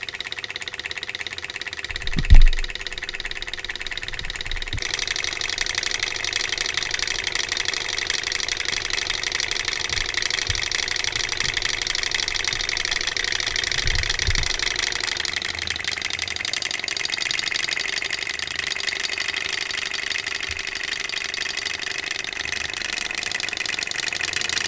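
Small alcohol-heated hot-air Stirling engine model running, its piston, linkage and flywheel making a fast, steady mechanical rattle that grows louder about five seconds in. A loud low thump about two seconds in.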